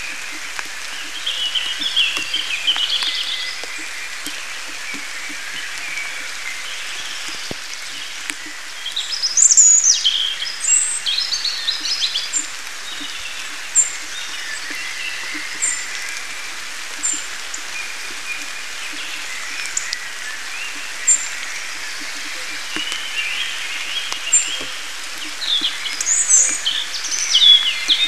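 Steady rain falling, with songbirds singing over it: song phrases about two seconds in, again around ten seconds and near the end, and short high chirps repeating every second or two in between.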